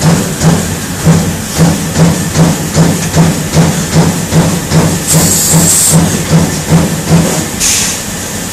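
Trumpf TruMatic 7000 punch-laser machine working a sheet with a rhythmic pulsing hum, about two and a half pulses a second, that stops near the end. Two loud hisses of air come about five seconds in and again near the end.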